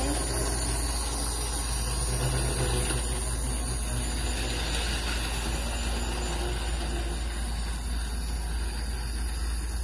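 Lionel model train running around a loop of metal track: a steady whir from the locomotive's motor and wheels, with a constant low hum underneath.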